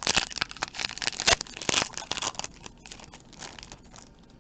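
Foil trading card pack wrapper being torn open and crinkled by hand, a dense run of crackling that thins out after about two and a half seconds.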